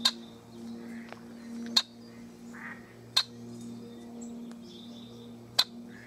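Red-winged blackbird giving four sharp, short call notes a second or two apart, over a steady low hum.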